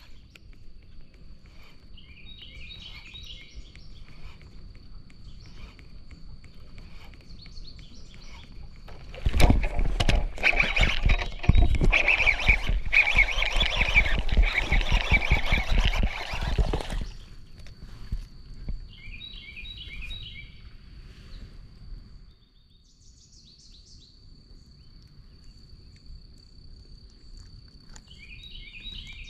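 A bird repeats a short chirping song phrase three times over a steady, high insect buzz. From about nine seconds in, a loud, rough stretch of noise full of rapid knocks lasts about eight seconds and then stops.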